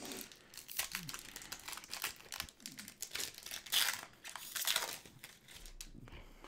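A trading card pack's wrapper being torn open and crinkled, in irregular rustles, loudest at about four and five seconds in.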